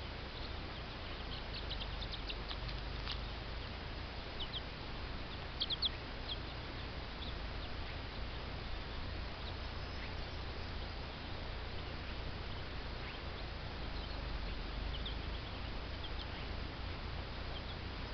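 Chicks a few days old peeping, short high cheeps coming in scattered clusters, over a steady low hum.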